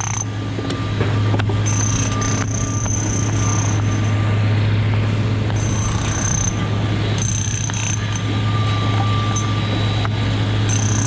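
Construction-site din: a steady low machine hum under a general clatter, with a few scattered sharp knocks.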